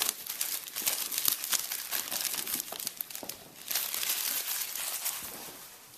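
Plastic shrink-wrap crinkling and tearing as it is pulled off a product box: a dense run of crackles that fades out near the end.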